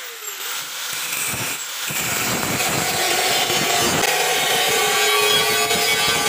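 Handheld angle grinder with a 100 mm cut-off disc cutting into a steel box-section bar. The grinding noise builds over about the first two seconds, then runs steadily with a held whining tone.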